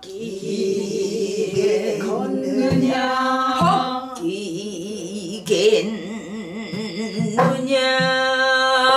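A woman singing pansori, drawing out long held notes that waver slowly in pitch, with a few strokes on a buk barrel drum beaten with a stick. A brighter new held note begins about seven and a half seconds in.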